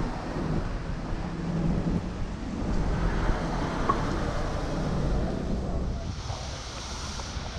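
Outdoor street ambience: a steady low noise of city traffic mixed with wind on the microphone.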